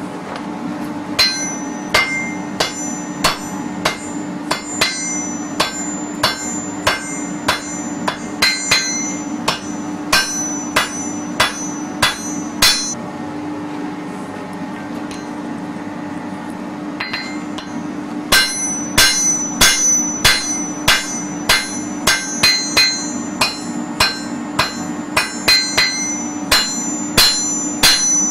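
Blacksmith's hand hammer striking red-hot iron on an anvil: a steady run of ringing blows, about two a second. The blows stop for about five seconds midway, then resume a little faster. A steady hum runs underneath.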